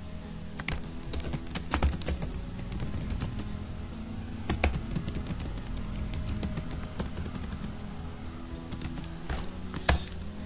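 Computer keyboard typing in uneven bursts of keystrokes, with one louder key press near the end, over quiet background music with steady low notes.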